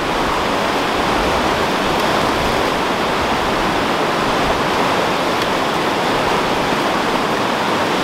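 Loud, steady rush of whitewater from a fast mountain river's rapids.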